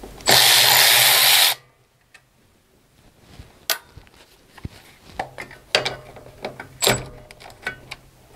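Cordless ratchet running in one loud burst of about a second on a 7/16-inch nut of the carburettor mounting, followed by scattered clicks and clinks of the tool being handled and set back on the engine.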